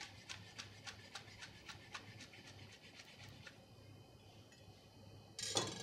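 Knife slicing finely through a tightly rolled stack of leaves on a cutting board: about three or four crisp, even cuts a second, stopping about three and a half seconds in. A brief, louder noise comes near the end.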